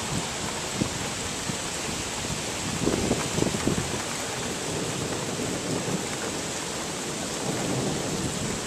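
Steady rain hissing during a thunderstorm, with a brief low crackling rumble of thunder about three seconds in.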